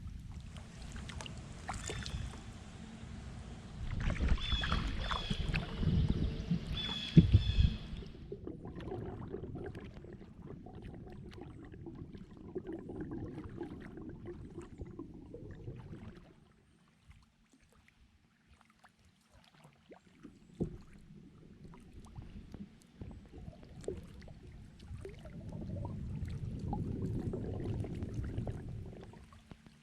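Water sounds of a kayak being paddled: paddle strokes and water washing around the boat, brighter and louder for the first several seconds, then a duller low rush that drops almost away in the middle and swells again near the end.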